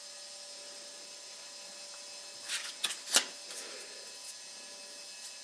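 Steady low hum and hiss, with a few short clicks and rustles about two and a half to three seconds in, the last the loudest.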